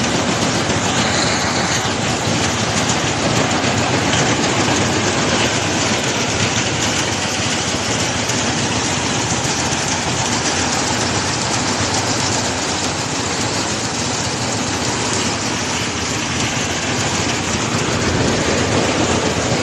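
Rice harvester running steadily: a loud, even mechanical noise with no clear pitch.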